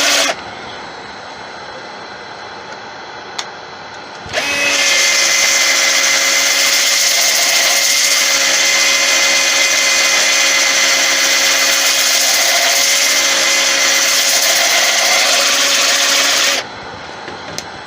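A power drill spinning a sanding pad with 120-grit paper against the inside of a turning wooden bowl: a loud, steady whine with a hiss. It stops almost at once and leaves only a quieter hum, starts again about four seconds in, runs steadily, and stops about a second before the end.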